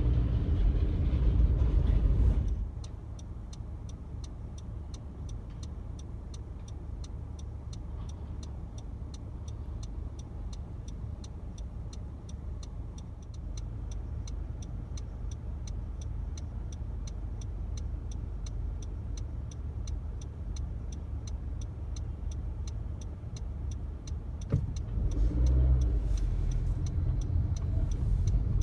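E-class tram passing close with a low rumble and a motor hum, which drops away suddenly to quieter street background with a steady quick ticking, two or three ticks a second. Near the end a click, then another E-class tram rumbles past close by with the same hum.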